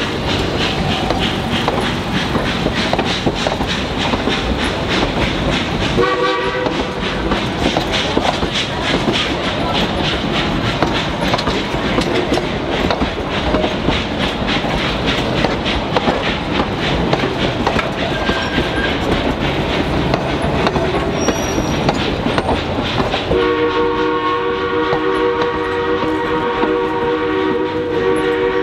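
Narrow-gauge passenger cars rolling past close by, their steel wheels clicking over the track in a quick, steady rhythm. Steam locomotive 473's chime whistle sounds a short blast about six seconds in and a long blast near the end.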